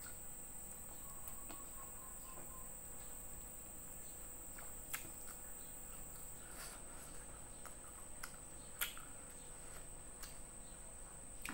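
Soft clicks and smacks of someone eating rice and fried fish by hand and chewing, over a steady high-pitched insect drone.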